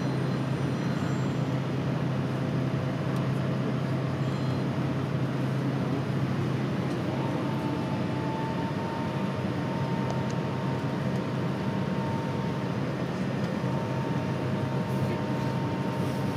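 Steady cabin noise of an Airbus A330 airliner: a low hum with rushing ventilation air. A faint high steady whine comes in about seven seconds in.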